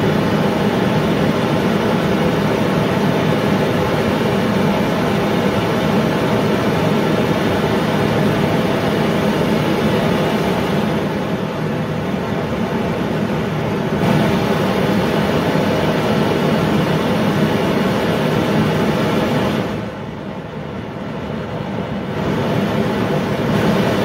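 Homemade LPG foundry burner with a flare, fed from a regulator set to 20 psi, burning with a steady loud rushing noise at full gas. It goes quieter twice, a little about eleven seconds in and more about twenty seconds in, as the gas is turned down, then rises again when it is turned back up.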